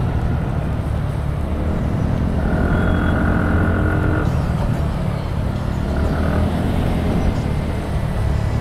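TVS Ntorq 125 scooter's single-cylinder engine running steadily under way, mixed with the road noise of surrounding traffic. A higher steady tone sounds for about two seconds near the middle.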